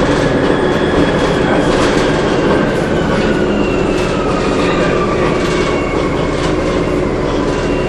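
Cabin noise of a 2007 Orion VII diesel-electric hybrid bus under way: the electric drive's whine slowly falling in pitch over a deep rumble, with loose rattles from the body.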